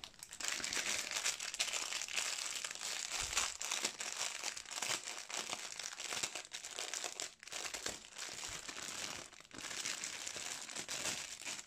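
Clear plastic packaging bag crinkling as it is handled and opened by hand, a continuous crackly rustle with a few short breaks.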